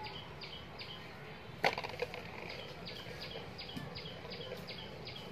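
One sharp crunch a little under two seconds in, typical of a long-tailed macaque biting into sugarcane, over a run of short high chirps that repeat about two or three times a second.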